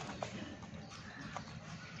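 Lovebirds pecking at their food: a few soft, scattered clicks over a steady low hum.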